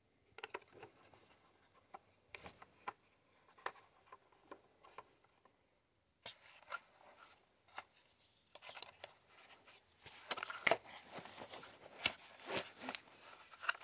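Small plastic clicks and rustling as orange propellers are handled and pressed onto the motor mounts of a DJI drone. The handling noises come sparsely at first and grow busier near the end.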